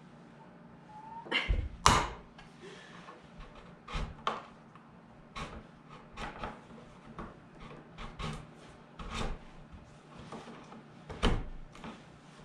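Sheathed electrical cable being handled and worked into a plastic wall electrical box: irregular clicks, taps and knocks, the loudest a pair about two seconds in and another near the end.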